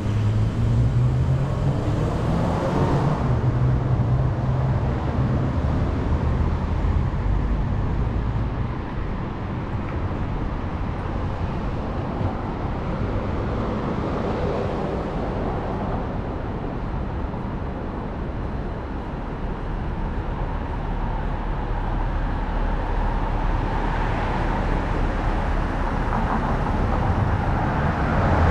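City street traffic: motor vehicles running and passing on the road, with a heavy engine's low rumble close by in the first several seconds and several swells as vehicles go by.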